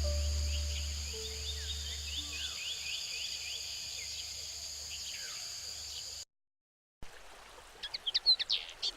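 Forest birds calling in a rapid series of short falling chirps over a steady high-pitched insect drone, with background music fading out in the first few seconds. About a second of dead silence follows, then birds chirp sharply again near the end.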